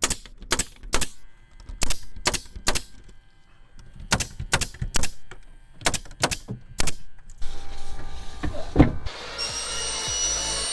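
Pneumatic brad nailer firing repeatedly, about fifteen sharp shots over some seven seconds, driving brads up into cedar tongue-and-groove ceiling boards. Background music takes over for the last few seconds.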